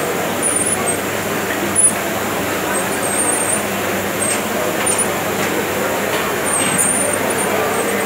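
Conveyor-type commercial dishwasher in its wash stage, its spray arms jetting water onto a dish rack inside the stainless cabinet: a steady, even rush of spraying water.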